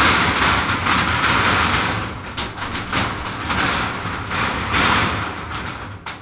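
Hooves of a loose herd of horses striking the deck of an old steel railway bridge as they trot across: many quick, irregular knocks overlapping one another.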